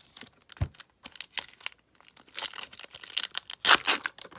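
A 1991-92 Upper Deck basketball card pack wrapper being torn open and crinkled: irregular crackling that grows busier, with the loudest burst near the end.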